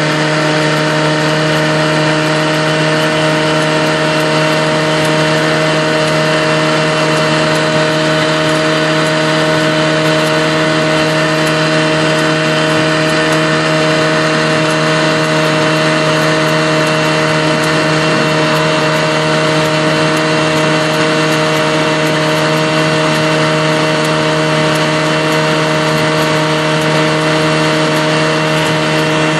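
1964 Mercury Merc 110 two-stroke outboard motor running at a steady throttle and a steady pitch, driving a small boat along, with the rush of its wake and wind beneath the engine note.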